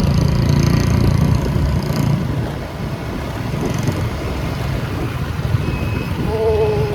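Vehicle on the move: a steady low engine and road rumble. A short pitched sound comes in about six seconds in.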